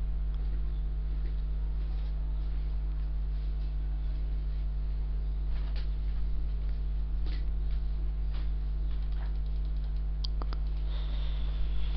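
Steady low electrical hum picked up by the recording microphone, with a few faint short clicks scattered through it.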